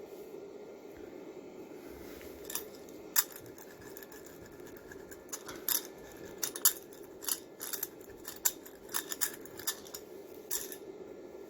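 About a dozen sharp snipping clicks at irregular spacing, starting a couple of seconds in and bunching toward the middle, from carpet being trimmed with a hand cutting tool. A faint steady hum lies under them.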